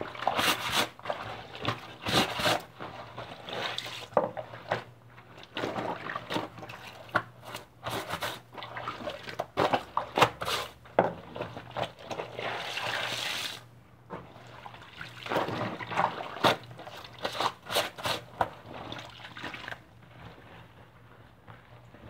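Laundry being washed in water: irregular splashing, sloshing and dripping as the clothes are handled, over a faint steady low hum.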